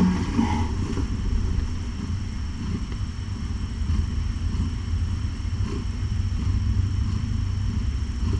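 Nursing mother cat purring, a steady low rumble close to the microphone.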